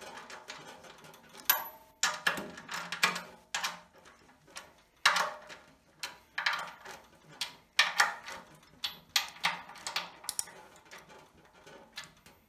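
Ratchet of a click-type torque wrench set to 10 N·m, worked back and forth in short strokes to tighten M8 bolts: groups of rapid sharp clicks about every second or so.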